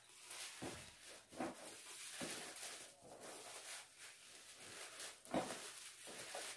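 Thin pink wrapping paper rustling and crinkling in the hands as it is gathered and folded into a gift ribbon.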